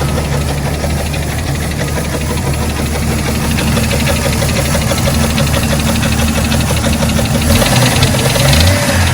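Jeep 4.0 stroker inline-six running with a heavy, rhythmic knock, the sound of it failing; the owner takes the knock for lower-end (bottom-end) damage. It gets louder about seven and a half seconds in.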